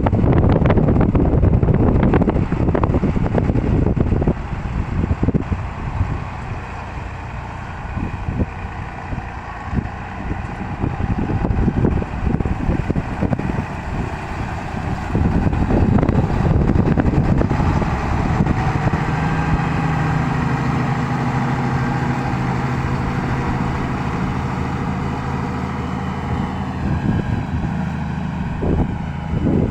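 Farm tractor's diesel engine running under load while ploughing grassland, rough and loud at first and settling into a steadier hum from about two-thirds of the way through.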